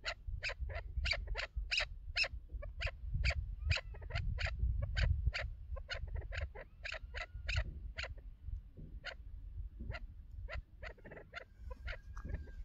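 Chukar partridge calling: a rapid series of sharp, short "chuk" notes, about three a second, thinning out in the second half. Wind rumbles on the microphone underneath.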